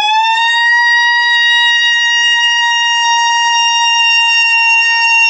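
A woman's singing voice gliding up into one long high note and holding it steady for several seconds, the final held note of the song, over a faint backing track.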